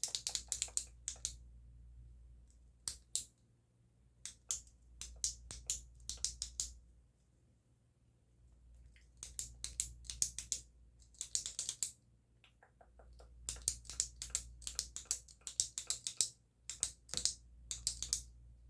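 A pen clicking sharply close to the microphone. The clicks come in quick runs of several a second, with short pauses between the runs.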